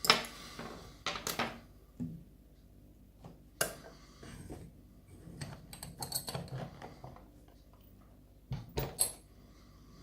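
Just-picked lock and its metal picking tools being handled: scattered sharp clicks and clinks of metal on metal, with softer rattling between them and a quick run of clicks near the end.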